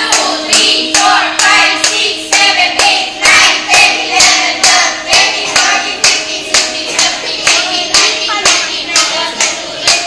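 A group clapping hands in a steady rhythm, about two claps a second, while voices sing along.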